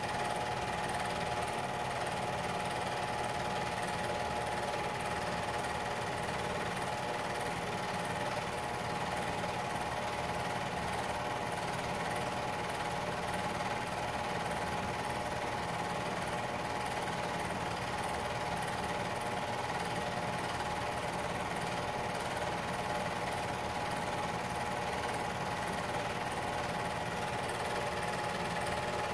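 Home movie film projector running steadily: an even mechanical whir with a held tone and a fast, regular chatter from the film mechanism.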